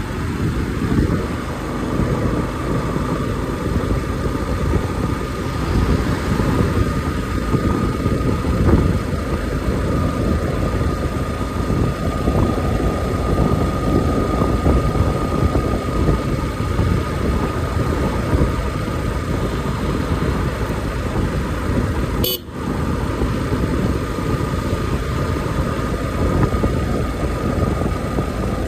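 Yamaha motorcycle riding at steady cruising speed in fourth gear, with wind and road rumble on the microphone and the engine running under it. A faint steady whistle-like tone sounds throughout, and the sound drops out briefly about three-quarters of the way through.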